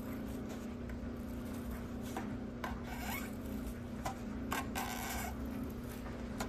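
Irregular short rubbing and scraping strokes as sticky double-sided tape adhesive is worked off the acrylic panel, over a steady low hum. The longest stroke comes about five seconds in.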